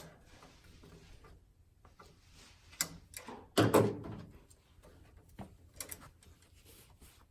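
Scattered clicks and knocks of hand tools and parts being handled at a metal electrical floor box while its cable clamp is tightened, the loudest a brief louder knock about three and a half seconds in.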